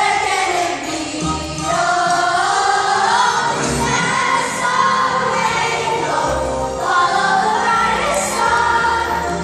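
A cast of children singing together in chorus over instrumental accompaniment with a steady bass line.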